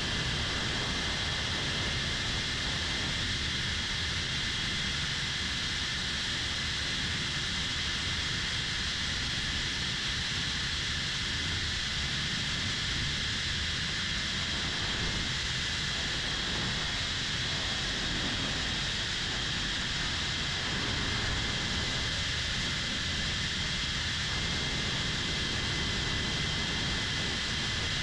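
3-inch cinewhoop drone's motors and propellers, heard through the GoPro mounted on it: a steady high-pitched whine over a rush of air, the pitch shifting only slightly as the throttle changes.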